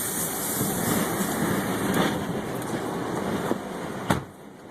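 Tornado wind blowing hard against a pickup truck, a dense steady rushing noise with a hissy top. A single sharp knock about four seconds in, after which the noise drops noticeably quieter.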